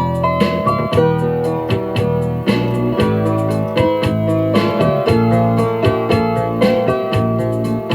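Background music led by piano or electric keyboard, with a steady beat.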